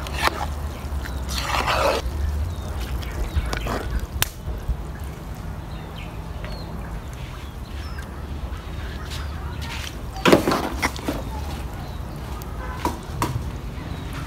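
Rice being stirred in a large metal pot in the first couple of seconds, then a few short calls from farmyard fowl, the loudest about ten seconds in, over a steady low rumble.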